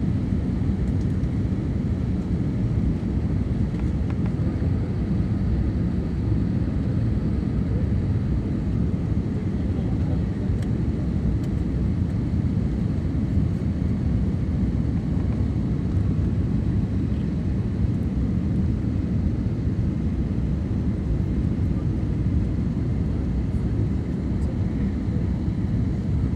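Steady low drone of a passenger aircraft's engines and airflow as heard inside the cabin in flight.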